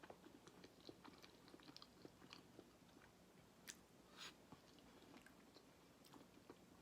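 Faint close-miked chewing of a mouthful of food: soft, irregular wet mouth clicks and smacks, a couple slightly louder a little past the middle.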